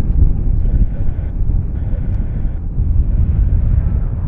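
Wind buffeting the microphone: a loud, unsteady low rumble with a faint hiss above it.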